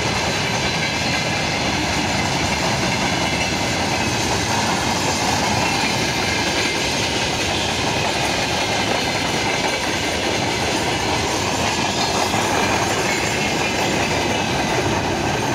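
Freight train of covered cement hopper wagons rolling past close by: a loud, steady clatter of steel wheels running over the rails.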